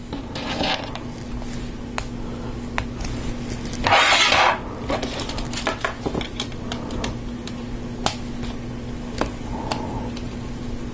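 LEGO Technic plastic beams, pins and gear parts clicking and clattering as they are handled and pressed onto a gearbox frame, with a louder, longer rattle about four seconds in.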